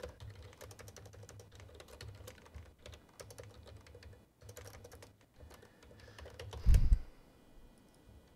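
Typing on a computer keyboard: an uneven run of key clicks, with one louder low thump about seven seconds in.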